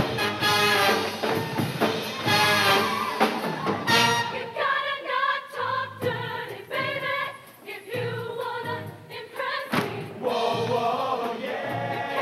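Show choir singing in full-voiced harmony over a band accompaniment with percussion.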